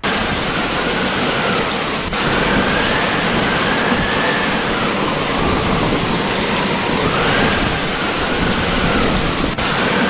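Heavy rain and floodwater rushing through a street: a loud, steady rush of noise. A faint high tone slowly wavers up and down over it.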